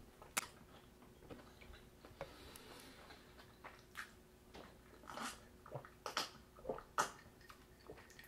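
Faint mouth sounds of eating and drinking: scattered soft clicks and swallows as iced tea is sipped from a glass mug, most of them about halfway through.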